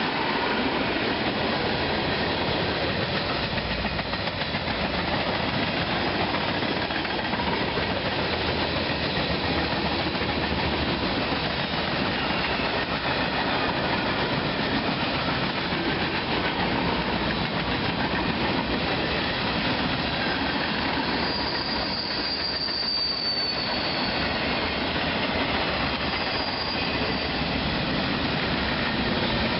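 A train rolling past: a steady rumble and rattle of wheels over the rail joints. A high-pitched wheel squeal comes in about three quarters of the way through, with a fainter one shortly after.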